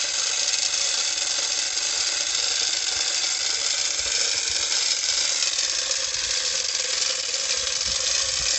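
Manual chain hoist being hauled by its hand chain: steady, rapid clicking of the ratchet pawl with rattling chain as it lifts a submersible pump out of a borewell.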